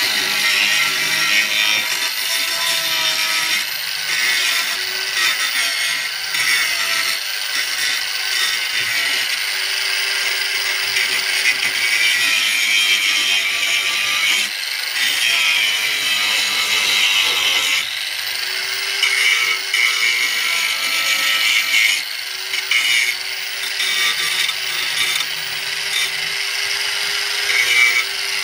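Handheld angle grinder running continuously against a boat rudder: a steady grinding rasp with a motor whine underneath that shifts in pitch now and then.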